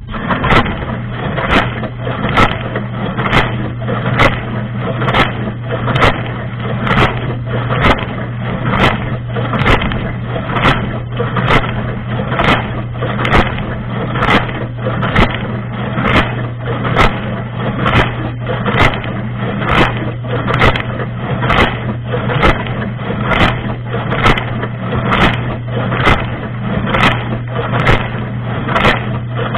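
Dishwasher wash cycle heard from inside the tub: the circulation pump hums steadily under a dense rush of water spray, pulsing sharply a little faster than once a second as the rotating spray arm sweeps its jets past. It starts suddenly and cuts off suddenly at the end.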